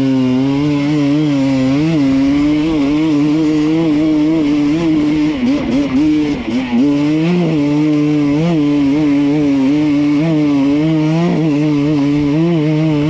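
Enduro dirt bike engine running under throttle, its pitch wavering up and down as the rider works the throttle on the trail. About halfway through it drops off briefly as the throttle is eased, then picks back up.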